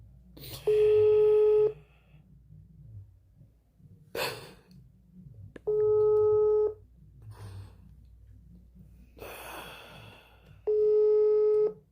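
Brazilian telephone ringback tone: a steady one-pitch beep lasting about a second, three times, about five seconds apart. The call is ringing with nobody picking up.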